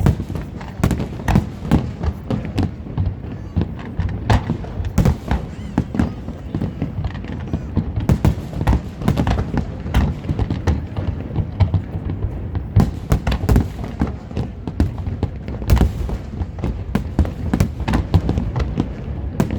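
Aerial fireworks bursting in a fast, irregular run of bangs, several a second, over a continuous low rumble.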